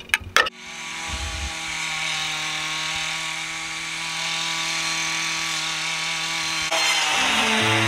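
A few sharp clicks, then a small engine comes in about half a second in and runs at a steady speed.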